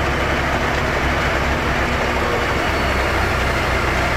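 A fire engine's engine running steadily close by at a low, even pitch, over a steady hiss.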